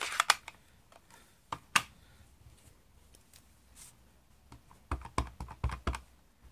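Light plastic clicks and taps from handling a Stampin' Up! ink pad case: a few single clicks in the first two seconds, then a quick cluster of knocks about five seconds in as the pad's hinged lid is opened and moved.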